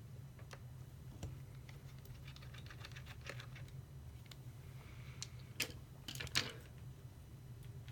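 Small clicks and light ticks of a screwdriver working out the screen screws of a 2013 MacBook Pro 13", with small screws and parts being handled. The loudest are a few sharp clicks about five and a half to six and a half seconds in, over a low steady hum.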